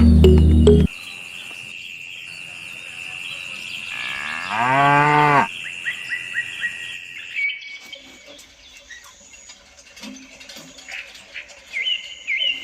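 A cow mooing once, about a second long, about five seconds in, over a steady high tone. Faint high chirps follow near the end.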